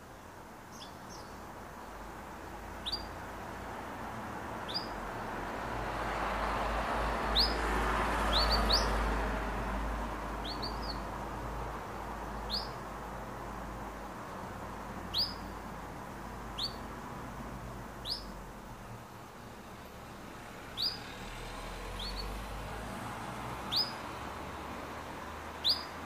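Domestic canary giving single short chirps, one every second or two, each a quick downward-sweeping high note, rather than a continuous song. A low background rumble swells and fades about a third of the way in.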